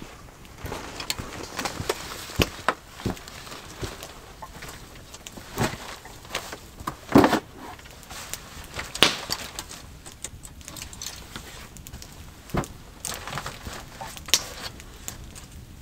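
A person moving about and handling gear: footsteps and irregular knocks, clicks and rustles, the loudest knock about seven seconds in and another about two seconds later.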